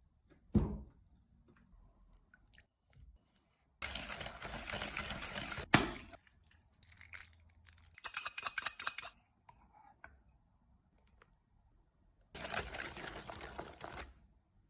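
Kitchen handling noises during food preparation: a soft thump, then two bursts of rustling or crinkling a couple of seconds long, with a quick run of clicks between them and quiet gaps in between.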